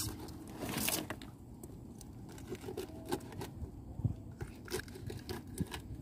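Rough scraping and tearing noise, loudest in a short burst just under a second in, then scattered light knocks and scrapes over a low, steady rumble.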